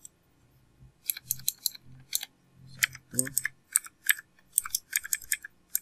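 Typing on a computer keyboard: an irregular run of quick keystrokes starting about a second in.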